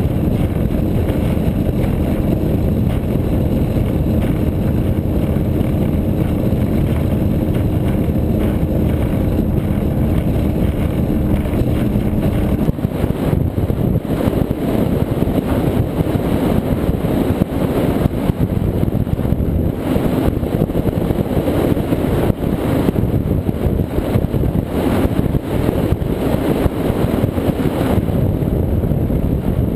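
Cigarette Gladiator powerboat running at speed: a steady engine drone under wind and rushing water. About a third of the way in the engine hum drops out and rough, fluttering wind and water noise takes over.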